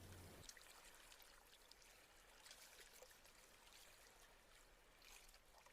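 Near silence: faint room tone hiss with a low hum that drops away about half a second in.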